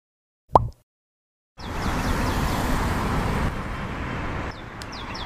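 A short, loud cartoon pop about half a second in. After a second of silence, steady city traffic noise begins, with birds chirping over it, and it drops a little near the end.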